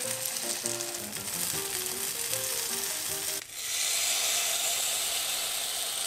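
Macaroni-and-cheese batter with egg and bacon sizzling on the hot plates of a mini waffle maker, under light background music. About three and a half seconds in, the sizzle cuts off briefly and comes back louder and hissier, with no music.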